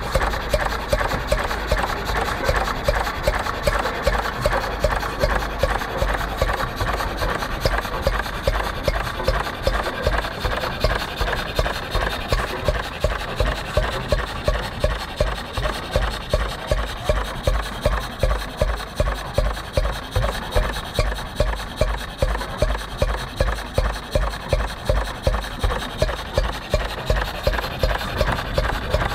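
A 1927 Reilstad single-cylinder engine running steadily at slow speed, with an even exhaust beat of about two to three strokes a second.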